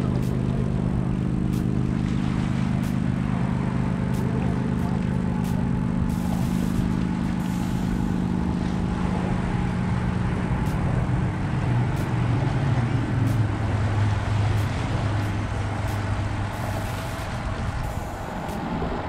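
A motor vehicle engine running with a steady low hum that drops in pitch about halfway through, over a wash of noise.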